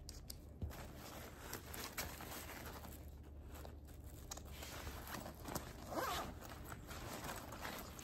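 Zipper being pulled along a travel backpack's compartment, with the faint rustle and scrape of the bag's fabric being handled.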